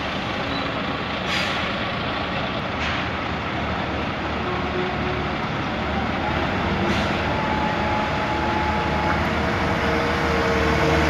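Heavy diesel engines running steadily: a Volvo tractor unit idling and a CAT 226B skid-steer loader driving close by. Three short hisses cut in, about a second in, near three seconds and about seven seconds in.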